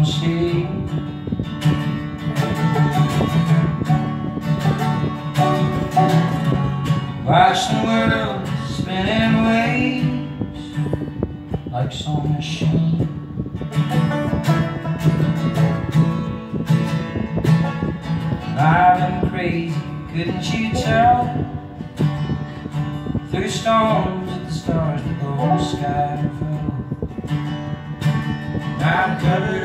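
Live acoustic band music: a strummed acoustic guitar and a second plucked string instrument over a steady low bed, with a wavering melody line that comes and goes a few times and no sung words.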